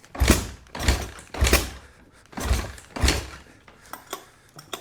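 Dirt bike being kicked over with the choke on, about five heavy strokes in the first three seconds, each a thud and rush that dies away; the engine turns over but does not catch, then it goes quieter.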